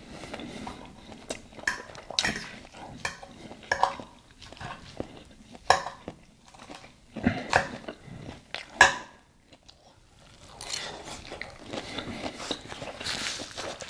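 Fork and knife clinking and scraping against a plate during a meal, a series of sharp clinks with the loudest two in the middle, followed by softer close-up eating and chewing noise.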